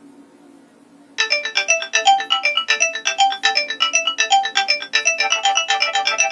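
A Nokia 2865 mobile phone playing a polyphonic ringtone through its loudspeaker: after a faint hum, a fast, bright electronic melody of short notes over a bass line starts abruptly about a second in and keeps going.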